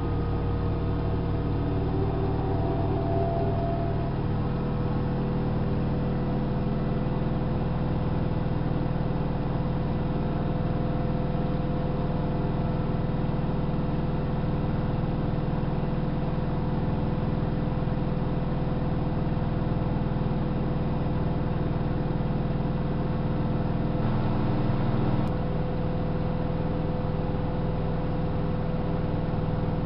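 Hanseatic HWM814A3D front-loading washing machine running, a steady machine hum with several held tones. The low part of the hum changes briefly about 24 seconds in, then settles again.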